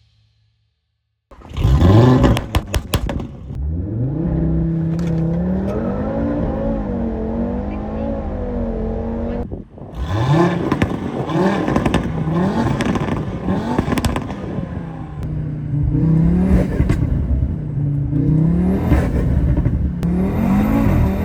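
Stage 2 tuned Audi RS3's 2.5 TFSI turbocharged five-cylinder starting up with a loud burst of pops and crackles, settling into a wavering idle. From about halfway it is blipped again and again, the pitch rising and falling with each rev.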